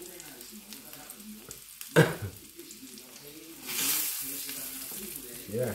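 Breaded croquettes frying in a pan with a steady sizzle, which swells louder for about two seconds past the middle as the pan is handled on the hob. A short loud knock comes about two seconds in.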